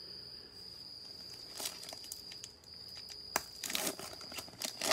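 Foil trading-card pack wrapper crinkling and tearing open in several short bursts, loudest near the end, over a cricket's continuous high trill.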